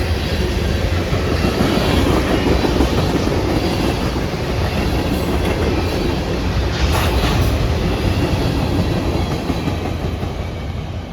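A CSX local freight train rolling past, its car wheels clattering steadily over the rails. There is a brief sharper burst of wheel noise about seven seconds in, and the sound eases off slightly near the end.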